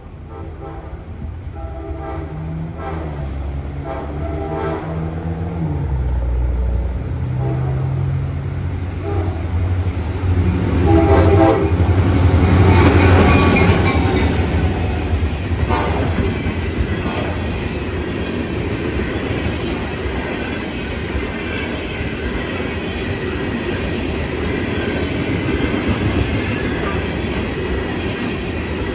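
Diesel freight train passing a grade crossing. The locomotive sounds its multi-chime horn in a string of blasts over the engine's rumble, loudest as it goes by about halfway through. Then the freight cars roll past with their wheels clacking over the rail joints.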